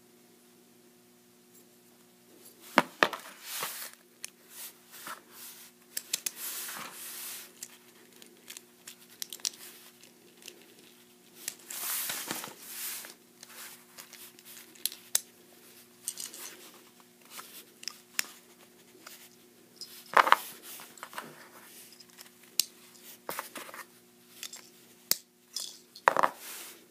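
Hands handling and fitting together the metal wheel and plastic parts of an Infinity Libra Beyblade: irregular clicks and snaps of the parts, with crinkling plastic. The sharpest clicks come about three seconds in, again near twenty seconds, and near the end. A faint steady hum runs underneath.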